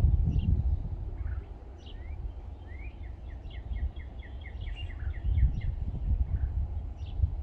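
Small songbirds chirping, with one bird giving a quick trill of about a dozen short, evenly spaced notes midway, over a low, gusting rumble of wind on the microphone.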